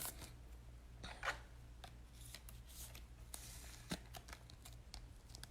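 Faint handling of trading cards and their plastic holders: soft rustling with a few light clicks, over a low steady hum.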